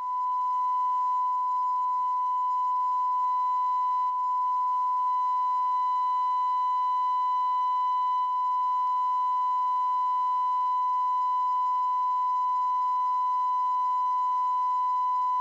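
Steady 1 kHz sine test tone played through a speaker driven by the repaired Response Precision AA0424 car amplifier, a load test of its output stage. One unbroken pure-sounding beep with faint overtones, its level dipping slightly twice.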